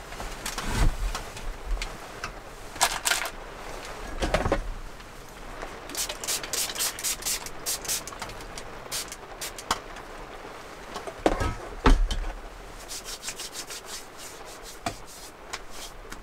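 Hands and a paper tissue rubbing in quick rhythmic strokes, in two longer runs, with a few knocks on a wooden table, the loudest near the end. A steady hiss of rain lies underneath.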